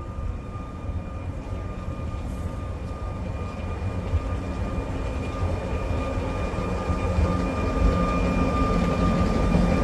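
Electric tram running with a low rumble that grows gradually louder as it comes closer, over a steady high whine.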